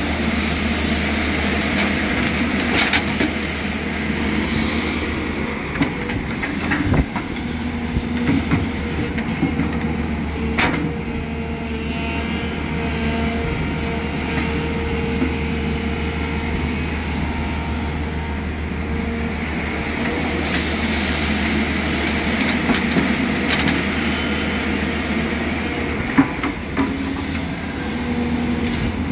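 Tata Hitachi EX210LC hydraulic excavator's diesel engine running steadily under working load as the machine swings and digs, with a constant whine over the low engine hum. A few sharp metallic knocks and clanks from the bucket and arm break through, one around 7 seconds in and another near the end.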